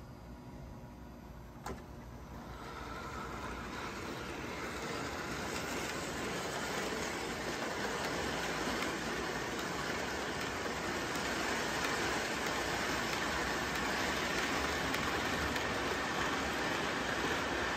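O-gauge three-rail model train running on metal track: an MTH Rail King Hudson locomotive pulling passenger cars, its wheels and motor making a steady rolling rumble that grows louder over the first few seconds. A single click comes about two seconds in. There is no chuffing or whistle, since the locomotive's sound system no longer works.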